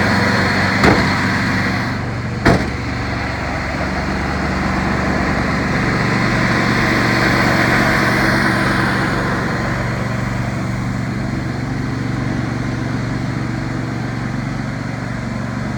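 An engine running steadily, with two short sharp clicks about one and two and a half seconds in.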